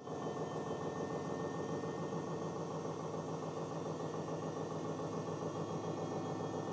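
Washing machine on its spin cycle: the drum spinning at a steady speed, giving an even mechanical hum with a fast, regular ripple.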